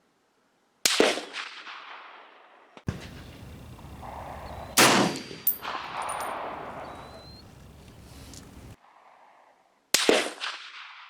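National Match M1A semi-automatic rifle in .308 firing three single shots, about four to five seconds apart, each followed by a long echoing decay.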